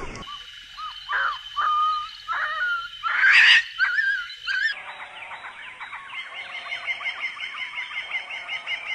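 Animal calls: a series of short cries that rise and fall in pitch, loudest about three and a half seconds in, then from about five seconds a fast even run of chirps, about five a second.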